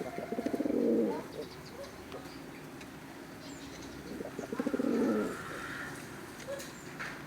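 Racing pigeon cooing: two rolling coos, one near the start and another about five seconds in, each lasting about a second.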